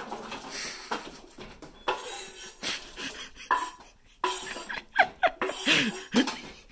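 A knife scraping and tapping sliced carrot rounds off a wooden cutting board into a steel saucepan of boiling water: irregular scrapes and sharp knocks as the pieces drop into the pot, the sharpest knock about five seconds in.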